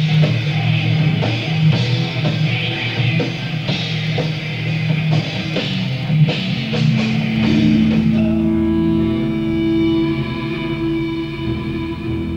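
Live rock band playing: electric guitars, bass guitar and drum kit, with regular drum hits. About eight seconds in the busy playing gives way to a steady held chord.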